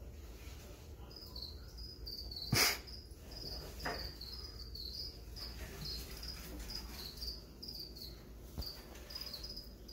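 Feeder crickets chirping: a steady run of short, high chirps. About two and a half seconds in comes a single sharp knock, with a lighter one a little over a second later.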